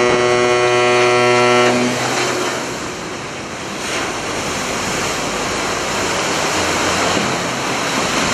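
A horn sounds a steady note and cuts off about two seconds in. Then comes the rushing and splashing of water as the cargo ship Scot Carrier is side-launched, its hull sliding off the slipway into the canal and throwing up a wave.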